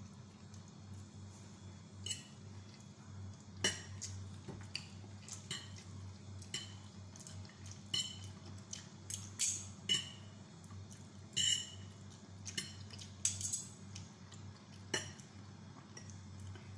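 Two metal forks clinking and scraping against a plate while twirling noodles: irregular short, sharp clinks with a brief ring. A low steady hum runs underneath.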